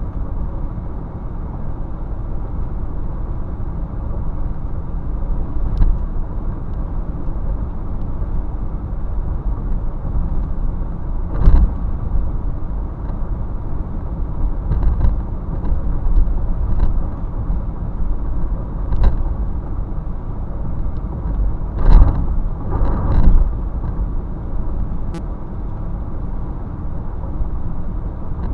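Steady low rumble of a motor vehicle, with a few brief knocks about eleven seconds in and again twice near twenty-two seconds.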